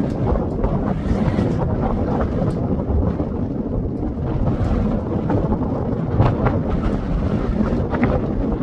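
Wind buffeting the microphone: a steady, ragged low rumble with no distinct engine tone.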